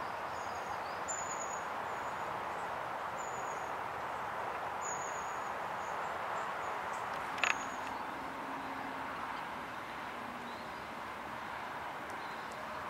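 Outdoor lakeside ambience: a steady, even hiss of background noise, with faint, high, thin bird calls now and then and a single sharp tick about seven and a half seconds in.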